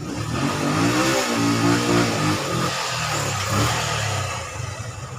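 Yamaha FZ motorcycle engine running and being revved, its pitch rising and falling about a second in, now starting and running after a hard-starting repair.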